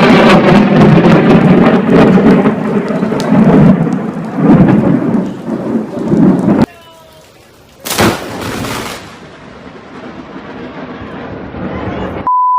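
Thunderstorm: heavy rain with rolling thunder, cut off abruptly about six and a half seconds in. After a short quiet gap, a sharp crack of thunder from a close lightning strike about eight seconds in, fading away. A steady beep tone starts near the end.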